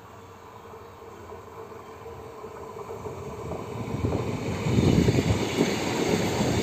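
Diesel railcar approaching and passing close by: its engine and wheels on the rails grow steadily louder, loudest from about four and a half seconds in as it goes by.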